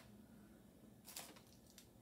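Near silence: quiet room tone with a few faint rustles of a small wrapped sweet being handled, about a second in.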